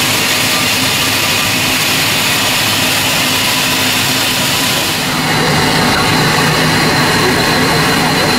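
Steam locomotive Mh.6 standing at rest and letting off steam: a loud, steady hiss. About five seconds in the sound shifts and a thin steady high tone joins the hiss.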